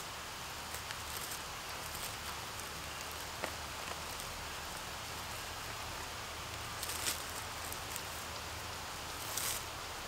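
Dry leaf litter rustling as a hand works into the forest floor and picks a porcini mushroom, with a few small clicks and two short rustles, about seven seconds in and near the end, over a steady background hiss.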